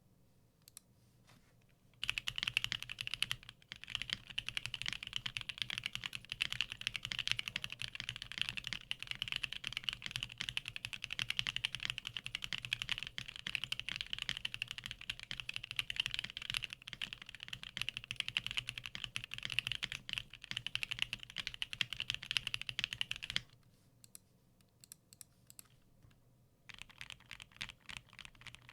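Fast, continuous typing on a custom 60% mechanical keyboard with lubed and filmed C3 Equalz Tangerine linear switches, an FR4 plate and ABS doubleshot keycaps. It starts about two seconds in, breaks off for about three seconds near the end, then resumes more softly.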